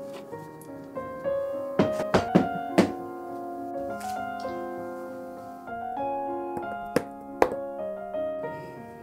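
Soft piano music playing, broken by several sharp knocks of kitchen items being set down on a countertop: a quick cluster about two seconds in, then two more near the end.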